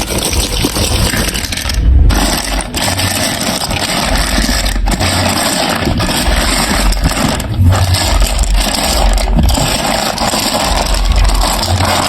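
Marbles rolling and rattling continuously down a plastic marble run track, with a low rumble and a few brief breaks.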